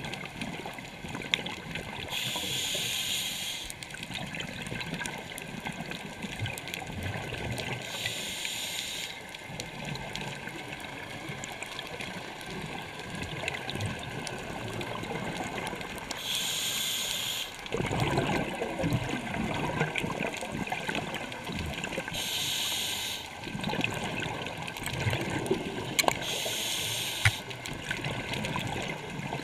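Scuba regulator breathing underwater: five hissing inhalations about every five to six seconds, with the bubbling, gurgling noise of exhaled air between them. A few sharp clicks are scattered through it.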